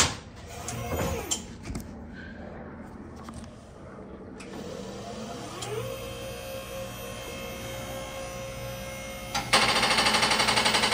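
Car lift being raised: a knock at the start, then about four and a half seconds in its electric pump motor starts, its whine rising and then holding steady. Near the end a loud, fast-pulsing creak joins in as the lift moves, which sounds scary but is normal for these lifts.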